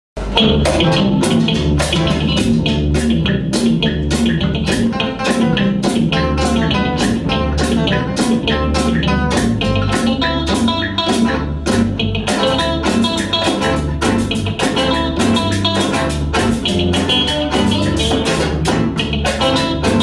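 Live cumbia band playing with a steady, even beat: an electric guitar melody over electric bass, congas and drums.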